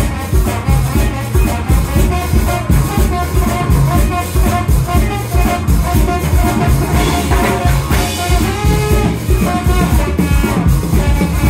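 Live ska-style band music: trombone and saxophones playing a horn line over a drum kit keeping a steady beat, with a metal güiro scraped in rhythm.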